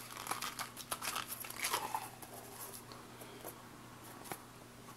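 Light handling noise: a quick run of small clicks and rustles in the first two seconds, then only a few faint clicks.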